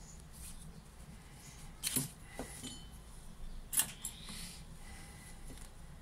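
Small metal clicks and clinks from a Saffa 10 lighter being taken apart by hand, its insert separated from its metal case: two sharp clicks about two seconds apart, each followed by a lighter tap.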